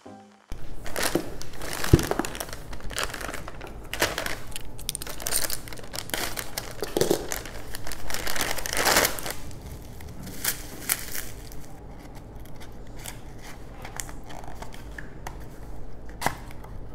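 Packaging crinkling and tearing as a parcel is unwrapped, in an irregular run of rustles, with a sharp click about two seconds in.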